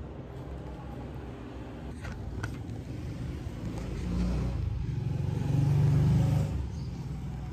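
Handling noise of a phone camera: a fleece sleeve brushes over the microphone, giving a low rumbling that swells twice, with a couple of light clicks about two seconds in.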